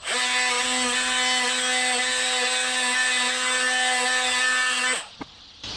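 Small cordless angle grinder running at a steady whine while its disc cuts through galvanised hexagonal wire mesh, throwing sparks. It stops suddenly about five seconds in, followed by a single click.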